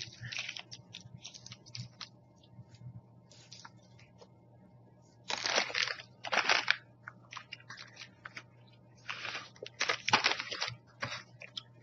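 Snack packaging crinkling and rustling in several loud bursts, with small clicks and taps between them.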